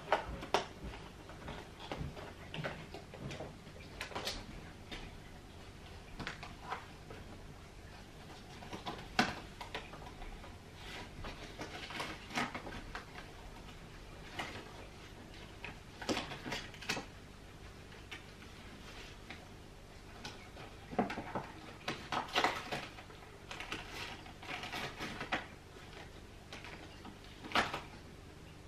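Cardboard and paper rustling and crinkling as a dog noses and paws through a Happy Meal box, with scattered clicks and light knocks in irregular bouts, busiest in the second half.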